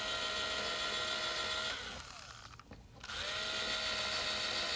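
Electric drill with a 3/32-inch bit running, boring holes down through plywood plates: a steady motor whine that stops about 1.7 seconds in and starts again, spinning up, about a second later.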